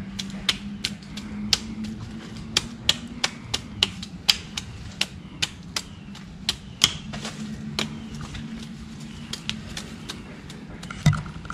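A machete chopping the roots off a banana corm: a quick, uneven run of sharp cutting strikes, about two to three a second.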